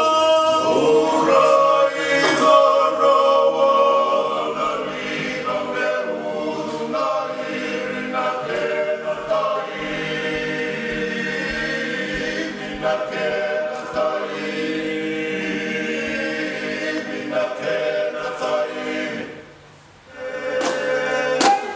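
A group of Fijian men chanting together unaccompanied, several voices holding long notes in harmony: a traditional ceremonial chant (meke), of the kind sung at a yaqona (kava) ceremony. The singing breaks off briefly near the end and then starts again.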